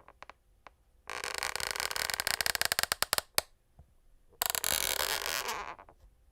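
Wooden parquet floorboards creaking twice under load, each creak a long crackling groan of rapid small clicks, the first about a second in and lasting some two seconds, the second starting near four and a half seconds in.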